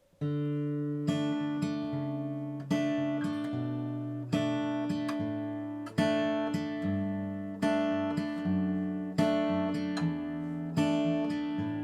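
Acoustic guitar intro: slow strummed chords that ring out and fade, a new chord about every second and a half.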